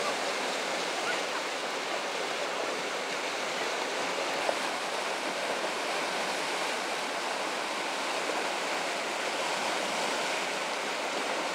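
River water rushing through a small whitewater rapid and standing wave: a steady, even rush of churning water.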